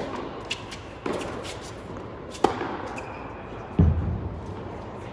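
Tennis racket strikes on the ball in a rally, echoing in a large indoor hall: a hard serve at the start, the return about a second later and another hit about two and a half seconds in. Near four seconds in comes a louder, deep thud.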